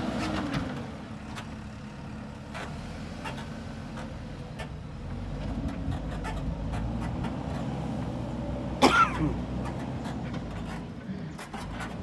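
JCB 3DX backhoe loader's diesel engine running steadily, with scattered light clanks and one short, loud screech about nine seconds in.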